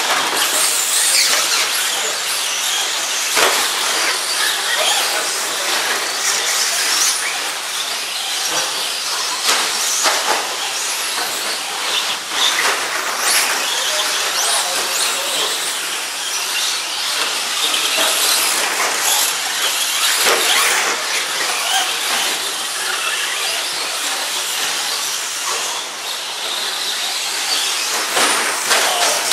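Several 2wd short-course RC trucks racing on a dirt track: a continuous high-pitched whine of motors rising and falling with the throttle, mixed with hissing from the tyres, and a few sharp knocks.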